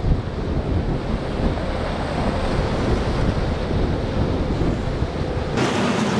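Wind buffeting the microphone over rushing, breaking surf in a rough inlet. Near the end the sound switches abruptly to a steady motor drone with water rushing, from a center-console boat's outboard engine running past.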